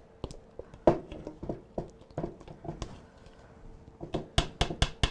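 A spoon knocking and scraping against a mixing bowl while stirring thick brownie batter by hand: irregular clacks, then a quicker run of knocks near the end.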